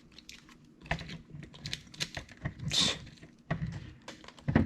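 Irregular light clicks and taps from handling a plastic RC buggy chassis and small tools while working its motor loose, with a short scraping rustle about three seconds in and a louder knock near the end.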